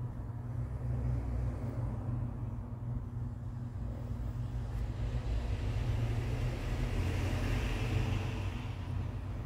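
Steady low rumble of background road traffic, with a soft hiss rising in the second half.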